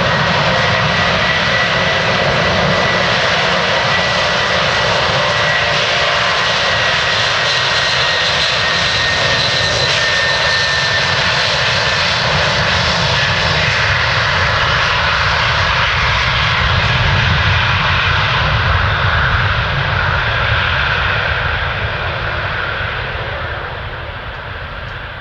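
Antonov An-124-100's four D-18T turbofan engines running at takeoff power: a loud, steady jet noise with a high whine that sags slightly in pitch, fading over the last few seconds as the aircraft draws away.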